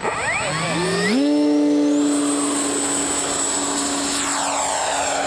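Electric RC model plane motor throttling up, its pitch rising in steps over the first second and then holding at a steady high whine. A rushing noise joins about four seconds in.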